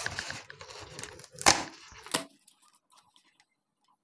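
A sheet of thermocol (expanded polystyrene foam) being broken by hand: a crackling, creaking tear for the first second or so, then two sharp snaps about a second and a half and two seconds in as a piece breaks away.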